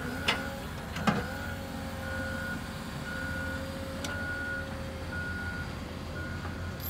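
Reversing alarm on a snow-clearing vehicle, a single high beep repeating about once a second over the steady low rumble of its diesel engine, with a couple of sharp knocks in the first second or so.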